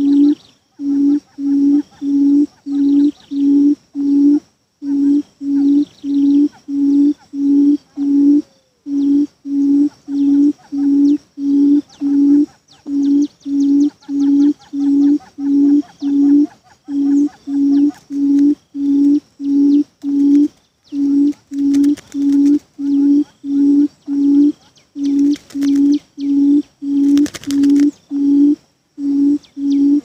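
Buttonquail calling: a loud low hoot repeated about three times a second in runs of five or six with short breaks, the call used as a decoy to lure buttonquail to the trap.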